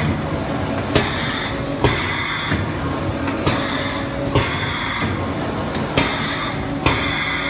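Automatic pneumatic sealing and cutting machine running: a sharp clack a little more than once a second, several with a brief hiss of air, over a steady hum of motors and conveyor.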